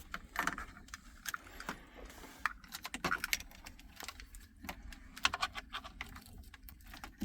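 Plastic wiring connectors and loose cables clicking and rattling in irregular light clicks as plugs are pushed into the back of an Android car stereo head unit.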